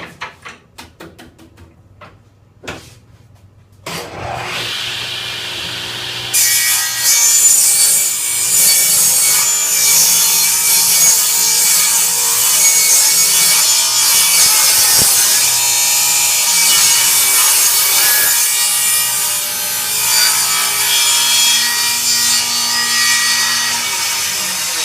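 A few sharp knocks, then a table saw starting up about four seconds in. About two seconds later its blade starts ripping along a board's edge, a light jointing pass that takes off the high spots, and the cut goes on steadily.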